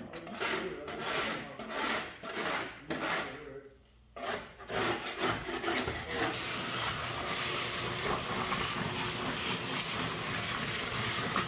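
A hand scraper rasps in quick repeated strokes across the sludge and dross caked on the bottom of a drained plasma-table tray. About six seconds in, a shop vacuum starts running steadily.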